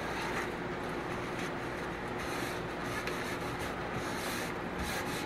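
A towel rubbing and wiping around the inside of an electric smoker's non-stick metal pot, a steady scrubbing sound with faint repeated strokes, clearing out greasy residue.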